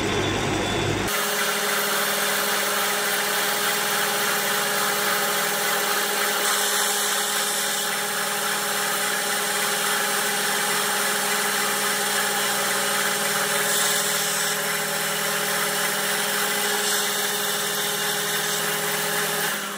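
Metal lathe running steadily, its motor and gears giving a constant layered whine, while a carbide insert tool turns down the end of an airgun barrel liner. A brighter hiss of cutting comes and goes a few times.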